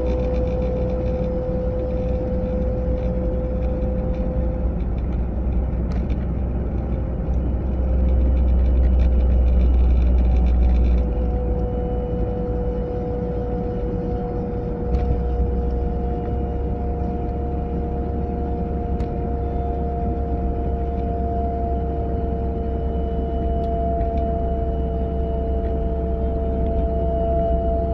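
Volvo 940 driving at about 30 to 40 mph: low road rumble with a steady whine from the passenger side, its pitch sliding slowly lower, and a second, higher whine joining about eleven seconds in. The cause of the whine is unknown.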